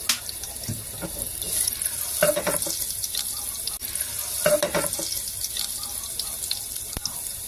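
Tap water running into a kitchen sink, with two short clatters of kitchenware, about two seconds in and again about four and a half seconds in.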